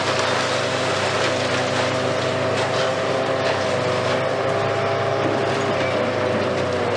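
Hitachi Kiesel KMC520 high-reach demolition excavator at work: its engine and hydraulics run with a steady whine of several held tones over a constant hiss, with light crackling as its jaws break concrete and rubble falls.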